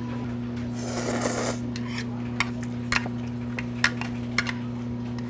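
Ramen noodles slurped from a bowl with a hissy rush about a second in, followed by a few sharp clicks of chopsticks and mouth sounds while eating, over a steady low electrical hum.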